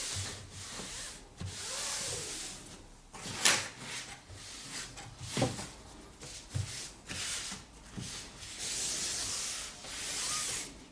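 Paper towel wiping to and fro over a surface, in uneven rubbing strokes of a second or two, with a sharp knock about three and a half seconds in and another about five and a half seconds in.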